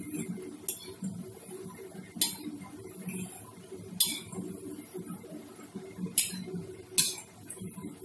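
A perforated steel skimmer clinks against a metal kadai about five times at irregular intervals while turning gulab jamun. Under it, the frying oil bubbles gently on a low flame.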